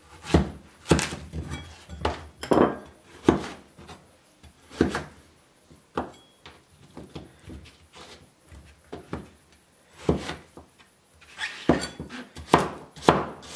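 A cleaver chopping a zucchini on a wooden cutting board: a series of sharp, irregular knocks of the blade through the vegetable onto the board, with short pauses between runs of cuts.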